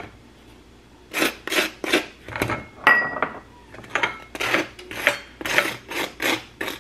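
Butter knife spreading butter across a bagel half, a run of short rasping scrapes about two or three a second, starting about a second in with a brief pause midway.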